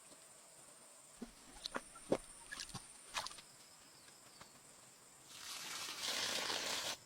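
Scattered light knocks and taps, then a louder stretch of steady scraping or rustling noise beginning a little after five seconds in, over a faint steady high tone.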